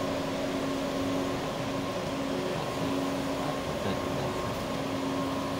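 Car engine running at low speed during slow manoeuvring: a steady, unchanging hum with a low drone.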